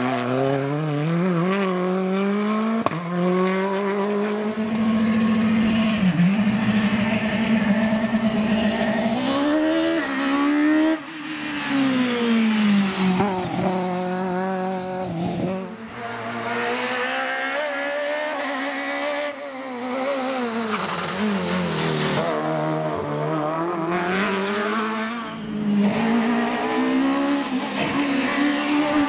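Rally car engine driven hard, its pitch climbing with the revs and dropping sharply at each gear change, again and again, with brief lifts off the throttle.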